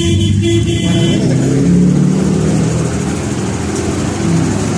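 City bus engines running and pulling past at close range over dense street traffic noise, loudest about two seconds in.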